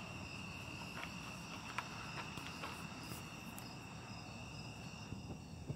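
Crickets trilling steadily in a faint night-time insect chorus, with a few soft clicks.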